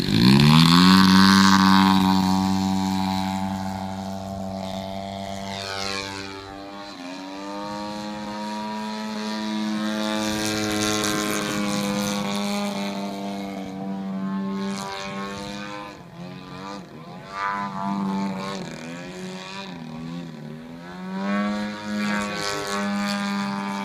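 Engine of a Hangar 9 Extra 300 radio-controlled aerobatic model plane throttling up sharply for takeoff, loudest right at the start. It then drones on as the plane flies overhead, its pitch bending up and down with the manoeuvres and dipping in level about two-thirds through.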